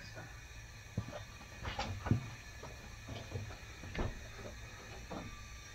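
A handful of light, scattered metallic clicks and taps from valvetrain parts on the exposed cylinder head of a Chevy V8 being handled during a valve stem seal job. The engine is not running.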